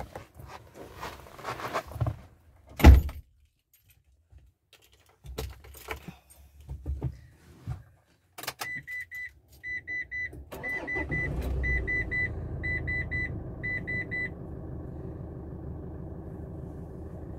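Keys jangling and a loud thunk in the first few seconds, then a dashboard warning chime beeping in short groups of two or three. About ten seconds in, the Mitsubishi L200's 2.5-litre diesel engine starts and settles to a steady idle.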